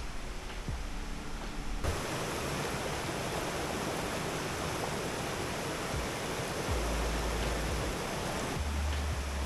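Tall waterfall rushing and splashing, a steady, even hiss of falling water across all pitches that starts abruptly about two seconds in, cutting off a moment of background music.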